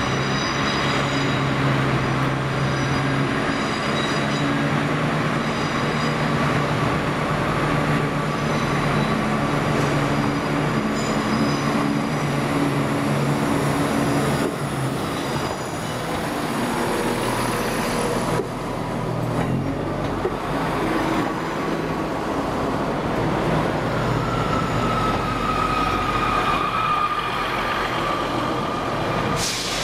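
Class 170 Turbostar diesel multiple unit running at the platform, its engine a steady low drone. About halfway this gives way to the hum of an electric multiple unit standing at the platform, with a whine that drifts lower in pitch near the end.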